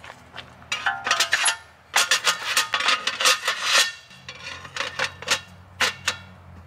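Tabletop panels being set onto a folding camp table's frame: a quick run of clattering knocks and clicks, densest from about two to four seconds in, with a few more near the end.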